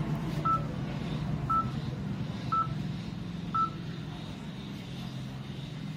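Four short, identical electronic beeps, about one a second, from a flash-number mental arithmetic program on a laptop, one beep with each number flashed on screen, over a steady low background hum.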